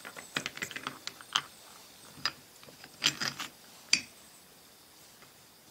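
Small metallic clicks and clinks of steel parts inside an Eaton limited-slip differential case as the cross pin is pushed through the case, block and spider gears. A cluster of clicks comes about three seconds in, and a sharper click follows just before four seconds.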